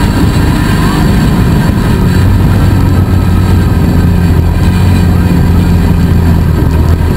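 Polaris RZR 170 side-by-side's single-cylinder four-stroke engine running loud and steady under way, heard from on board with the jostle of rough ground.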